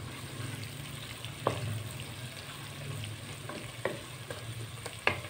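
Chopped onion, garlic and green capsicum sizzling gently in ghee in a pot as a wooden spoon stirs them, with a few light clicks of the spoon against the pot.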